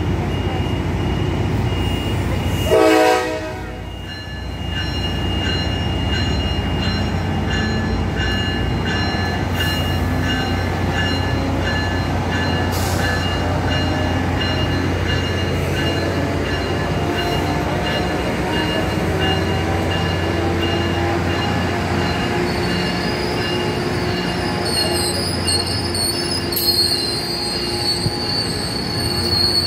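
Tri-Rail diesel-hauled commuter train at the platform and then pulling out, with a steady low hum throughout. About three seconds in there is a short loud tone, then a warning beep repeats for several seconds as the doors close. Slowly rising tones follow as the train starts to move, and steel wheels squeal on the rails near the end.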